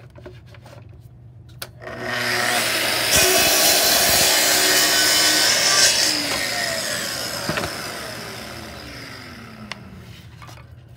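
Festool TS55 track saw starting up about two seconds in and ripping a long cut through a thin wood strip along its guide rail. Near the middle the motor is switched off and winds down with a falling whine that fades out.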